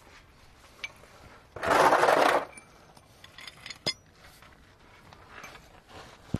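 A loud scrape lasting just under a second, then a few sharp metallic clinks as hand tools are handled under the tractor.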